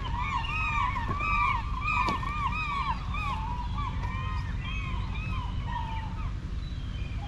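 A flock of gulls calling: many short, arched squawking calls overlapping, thick at first and thinning out after about five seconds, over a steady low rumble.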